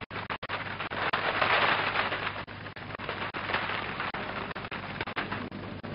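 A flock of pigeons taking flight, many wings flapping at once. It swells to its loudest a second or two in, then eases off.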